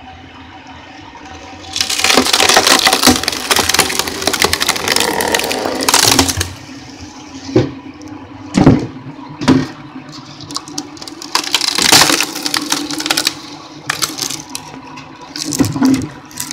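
Screw-cone log splitter: the spinning threaded steel cone bores into a round of wood and splits it with a long spell of loud crackling and splintering. Then come a series of separate sharp cracks as the split pieces are fed onto the cone again. The drive motor hums steadily underneath.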